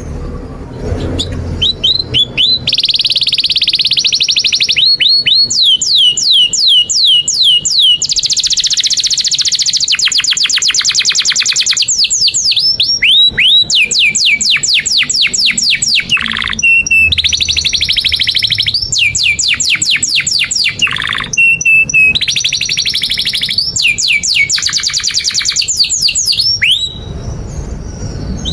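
Domestic canary singing a long, unbroken song of fast trills of repeated notes and quick rising and falling sweeps, high-pitched, changing phrase every second or two. It starts about a second in and turns softer near the end.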